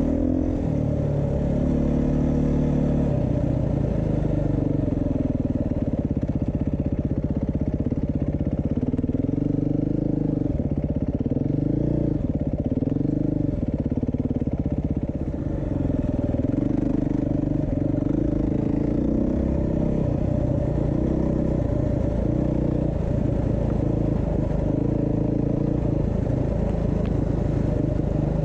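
2022 Beta 390 RR-S enduro motorcycle's single-cylinder four-stroke engine running under way, its revs rising and falling over and over as the throttle is worked.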